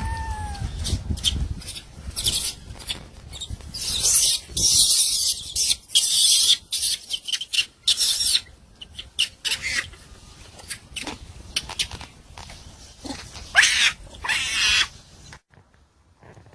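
Macaque screaming in repeated shrill bursts, after one short rising-and-falling call at the start.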